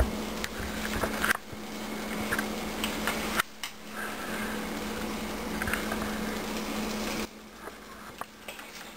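A buttered tortilla frying in a pan gives a steady hiss over a low hum, with scattered light taps and scrapes of utensils as the filling goes in. The sound drops off abruptly a few times, last about three-quarters of the way through.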